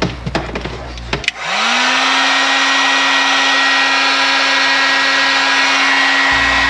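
Electric heat gun switched on about a second in: its fan motor spins up with a rising hum, then runs steadily with a loud rushing blow of air.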